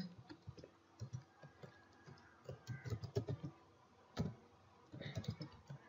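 Computer keyboard typing: faint, irregular keystrokes, one louder than the rest about four seconds in.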